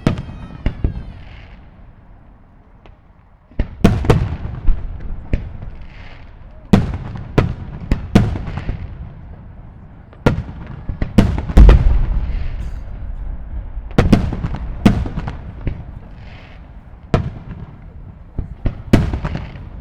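Aerial fireworks shells bursting in irregular succession, each sharp bang followed by a long rumbling tail of echo. The heaviest burst comes about halfway through.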